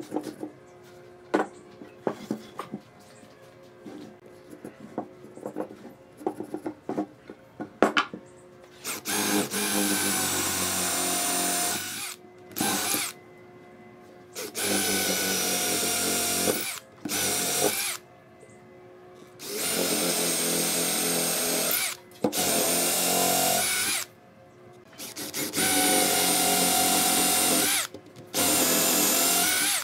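A marking gauge scratching and tapping along a wooden board, then a cordless drill boring holes into a wooden block with a twist bit, starting about nine seconds in and running in repeated bursts of one to three seconds with short pauses between.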